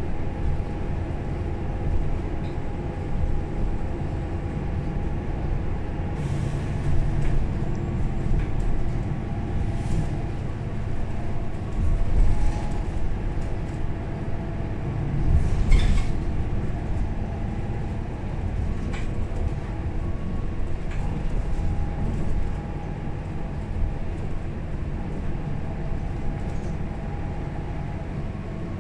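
Onboard ride in a 2009 Mercedes-Benz O530 Citaro Facelift city bus: the diesel engine and drivetrain running with a steady hum over road rumble. Occasional knocks and rattles from the body, swelling louder a few times, around six, twelve and sixteen seconds in.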